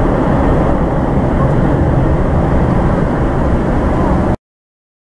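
Boeing 747-400 freighter's four jet engines at take-off thrust as it climbs away: a loud, steady, low rumbling jet noise that cuts off abruptly about four seconds in.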